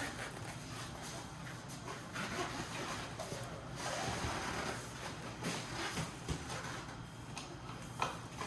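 Scraping and rubbing of parts being worked loose by hand during a teardown, with a few light knocks near the end.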